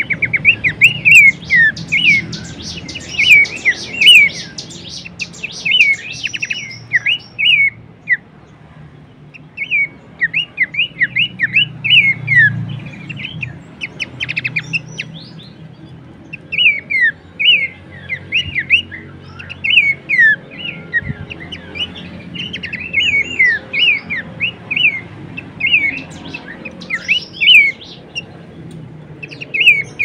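Horsfield's babbler (pelanduk semak) singing: rapid runs of short, sharp, downward-slurred whistled notes, broken by a few brief pauses.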